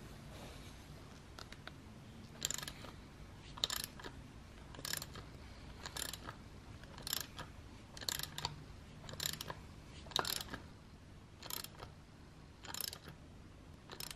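Ratchet wrench clicking in short bursts on its return strokes, about one burst a second, starting a couple of seconds in. It is turning a bolt that draws an offset nut into a brake caliper's mounting bore.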